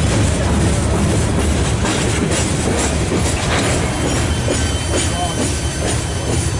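Loaded Herzog ballast train rolling past: a steady rumble of railcar wheels on the rails, with scattered clicks of wheels over rail joints.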